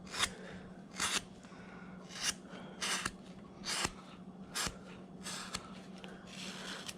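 A number 9, 10 mm carving gouge paring wood by hand in short strokes, about eight cuts spaced irregularly about a second or less apart.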